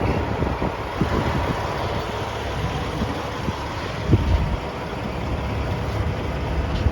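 Steady low rumble of an idling vehicle engine, with a few light knocks, the clearest about one second and four seconds in.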